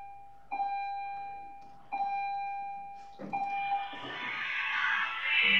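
An electronic chime of one pitch rings three times, about a second and a half apart, fading after each strike. From about three seconds in, music swells in and grows louder.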